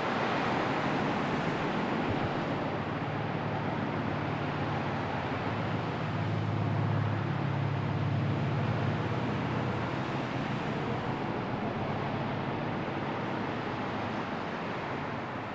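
Sea ambience: a steady wash of surf and wind noise, with a low drone swelling in and fading again through the middle.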